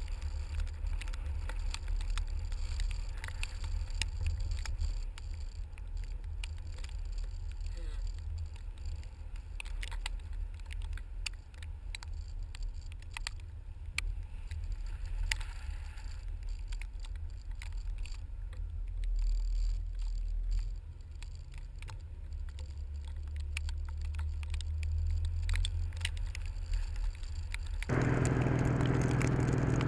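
Low steady rumble of a car driving, with faint scattered ticks; it stops abruptly near the end.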